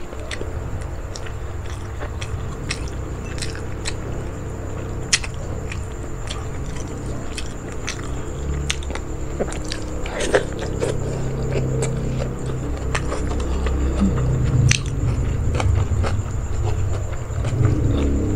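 A person chewing food close to the microphone, with many scattered wet mouth clicks over a continuous low chewing noise that grows louder in the second half.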